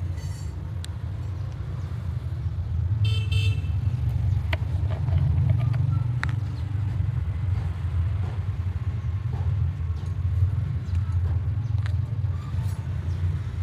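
Car engine running with a continuous low, uneven rumble. There is a short high-pitched toot about three seconds in, and a few faint clicks.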